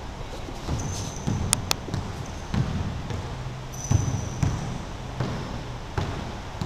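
A basketball bouncing on a hardwood gym floor with several irregular thumps, and sneakers squeaking briefly on the wood about a second in and again around four seconds in.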